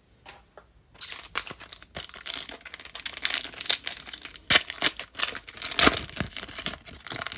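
A trading-card pack wrapper being torn open and crinkled in the hands, with the cards being handled: a dense, irregular crackling with a few sharp, louder crinkles in the middle.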